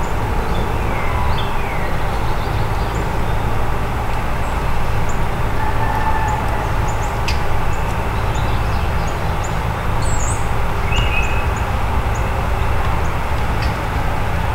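A steady low rumble, with small birds chirping and calling now and then over it.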